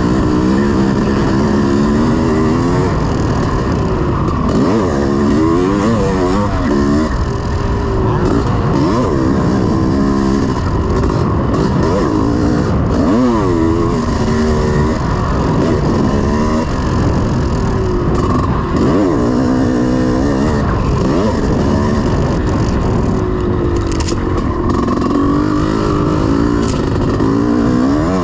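1986 Honda CR500's two-stroke single-cylinder engine running hard in a motocross race, its pitch rising and falling again and again as the throttle opens and shuts through the gears, over a steady rush of noise.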